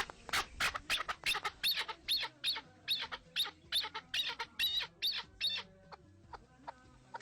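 A bird calling in a rapid series of short, sharp chirps, about three or four a second, thinning out about five and a half seconds in.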